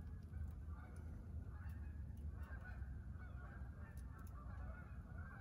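Coffee press plunger with a wetted seal being pushed slowly down through the pot, the seal rubbing against the wall in a continuous rough grinding sound.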